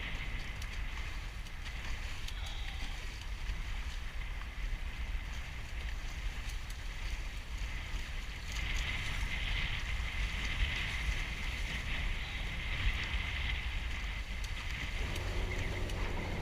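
Wind buffeting the camera microphone and water rushing past the hulls of a Hobie 14 catamaran under sail in high wind. It is a steady rushing noise with a low rumble, and the hiss grows a little louder about halfway through.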